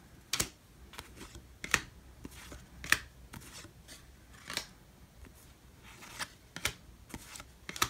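A stack of Topps baseball cards being flipped through by hand, each card slid off the stack with a short papery swish or snap, irregularly about once a second.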